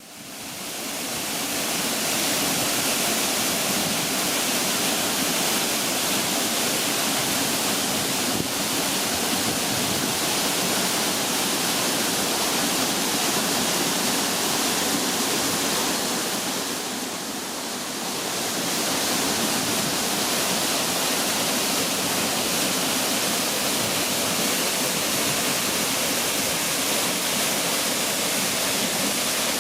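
Odaki waterfall pouring: a steady, dense rush of falling water, fading in over the first two seconds and dipping slightly for a moment a little past halfway.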